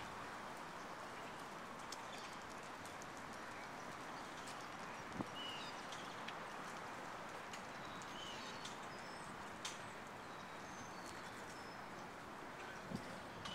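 Outdoor background noise, steady throughout, with scattered short bird chirps and a few sharp clicks, the loudest about five seconds in.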